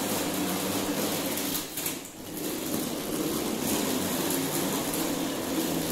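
Hard plastic wheels of a child's ride-on toy car rolling across a tiled floor, a steady rolling noise that dips briefly about two seconds in.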